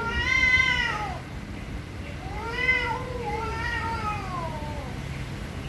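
Domestic cats in a face-off yowling: long, drawn-out calls that rise and fall in pitch, the loudest at the start and two more running into each other in the middle. This is the angry caterwaul of cats squaring off.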